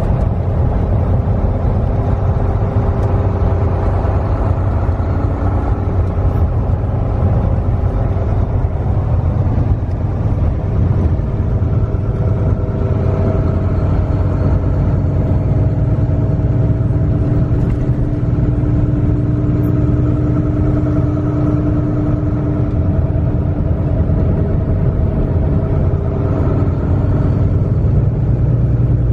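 Semi-truck cruising down the highway: a steady low engine and road drone, with a few held tones above it that slowly drift in pitch.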